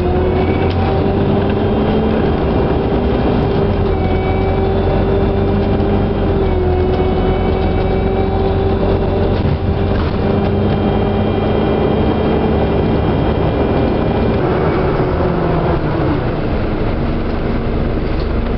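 Scania articulated bus driving, heard on board: a steady deep engine rumble with several whining tones from the drivetrain that shift slightly in pitch as it goes, the main whine dropping away about three-quarters of the way through.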